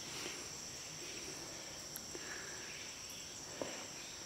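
Insects chirring in a steady high drone, with a few faint ticks.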